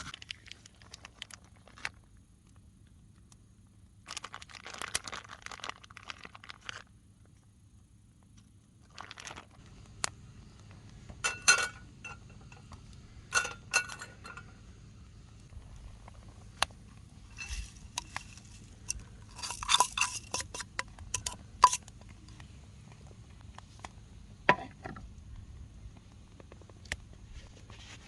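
Potato chips crunching as they are crushed and mixed, with sharp clinks of a utensil striking a bowl or dish in irregular clusters.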